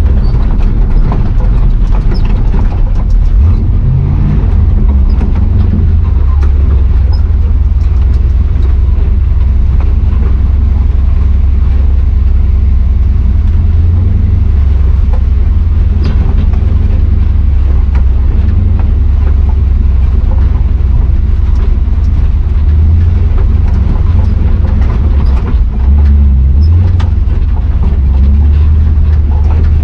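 Square-body Chevy 4x4 truck with a swapped-in 6.0 Vortec V8 under way, a loud, steady low engine drone with scattered light knocks and rattles.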